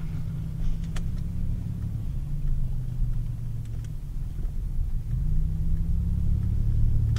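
Car engine running, heard from inside the cabin as a steady low drone while the car moves slowly. The drone picks up a little about five seconds in.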